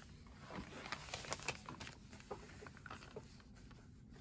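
Faint rustling and small taps of freezer paper and fabric being handled and set under a sewing machine's presser foot, a few soft clicks scattered through.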